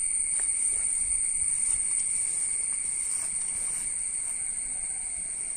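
A steady chorus of insects with a continuous high-pitched whine and a second, lower shrill band beneath it.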